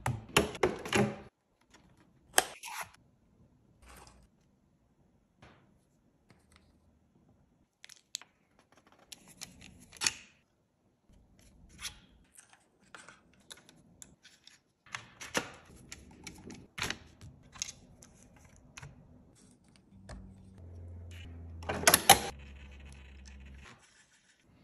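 Small plastic parts clicking, snapping and rattling as a scale RC winch and its bumper mount are handled and fitted. Near the end a small electric winch motor runs with a steady hum for about three and a half seconds, with a sharp click in the middle, as the winch line is let out.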